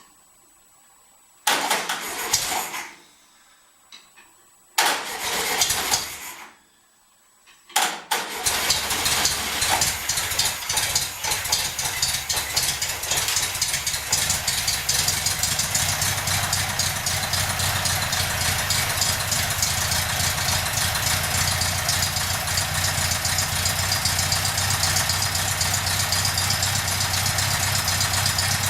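Freshly rebuilt air-cooled VW Beetle flat-four engine being started: it turns over in two short tries that die away, then about eight seconds in it catches and settles into a steady idle, running under its own power for the first time after assembly.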